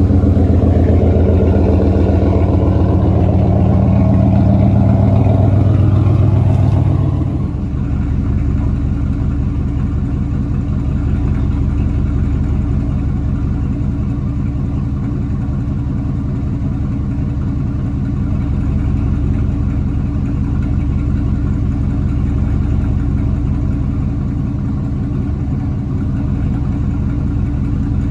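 A 2002 Dodge Ram 1500 pickup's engine idling fast just after starting, then dropping about seven seconds in and settling to a steady, lower idle.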